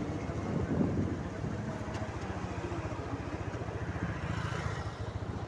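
TVS Raider 125's single-cylinder engine running at low road speed, a steady low beat of even firing pulses.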